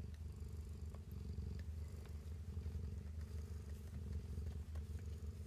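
Steady, close purring from a mother cat as she nurses her kittens, with a few faint clicks over it.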